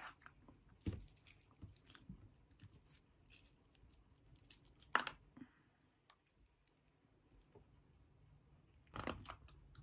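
Faint chewing and mouth sounds of someone eating, with scattered soft clicks and crackles. The sharpest click comes about a second in and another about five seconds in.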